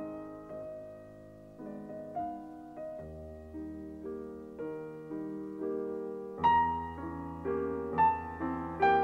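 Background piano music: a slow line of struck notes, each fading away, over held bass notes, growing louder from about six seconds in.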